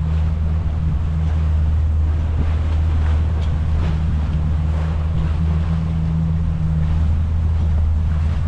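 Sailboat under way: water rushing along the hull and wind on the microphone, over a steady low drone.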